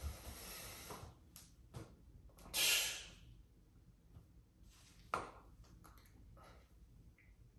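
A short, sharp exhale about two and a half seconds in, with a few faint clicks around it.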